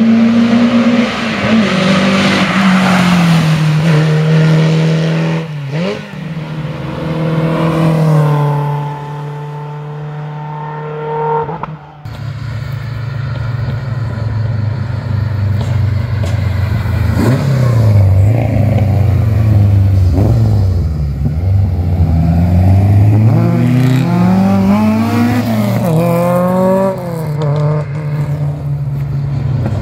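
Simca 1000 Rallye competition car's rear-mounted four-cylinder engine being driven hard. It holds high revs, then its pitch repeatedly climbs and drops as it is run up through the gears and lifted off. The sound changes abruptly about twelve seconds in.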